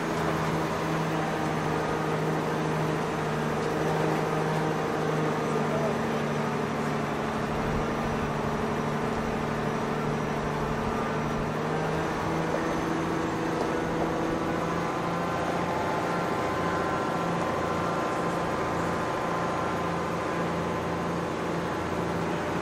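Off-road vehicle's engine running at a steady pace while it drives along a rough track, heard from on board.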